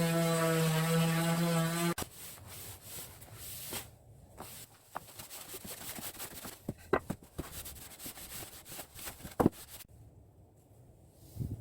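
An electric power tool's motor runs with a steady hum and stops abruptly about two seconds in, followed by scattered knocks, clicks and rubbing as wood and tools are handled.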